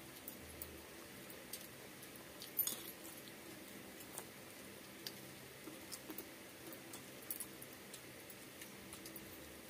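Eating rice by hand: faint scattered clicks and smacks of chewing and of fingers mixing rice on a banana leaf, the loudest smack about two and a half seconds in.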